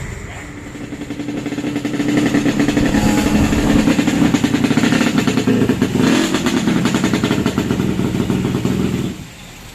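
Yamaha RX-King's 135cc two-stroke single-cylinder engine revving up over about two seconds and held at high revs, then dropping back sharply as the throttle closes near the end.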